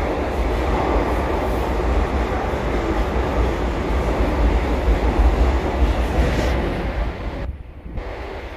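Metro train running, heard from inside the passenger car: a steady rumble of wheels on track. The noise drops away briefly about seven and a half seconds in.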